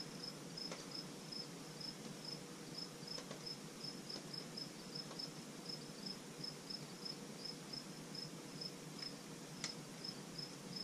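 Crickets chirping steadily, a short high chirp about three times a second, with a few faint clicks near the middle and near the end.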